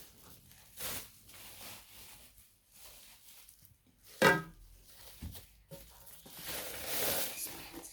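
Packaging being rustled and torn open by hand while unwrapping a cookware lid, in scattered bursts with a longer stretch of rustling near the end. A short, loud, pitched squeak about four seconds in is the loudest sound.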